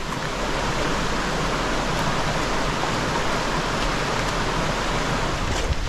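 Steady, even rushing noise of the kind made by running water.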